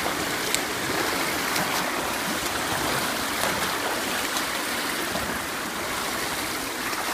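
Splashing of a swimmer's front-crawl arm strokes and kicks in an indoor pool, over a steady rush of water.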